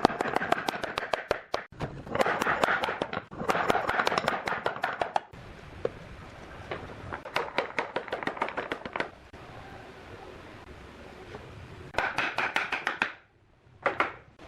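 Rapid, evenly spaced strikes on wood, about nine a second, in bursts of one to two seconds with short pauses between, the last two bursts shortest.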